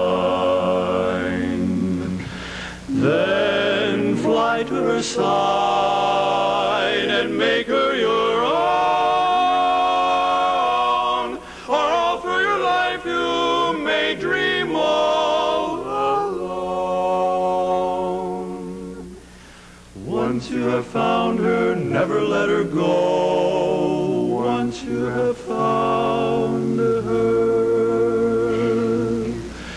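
Male barbershop quartet singing a cappella in close four-part harmony, with held chords and short breaks between phrases, and a softer passage about nineteen seconds in.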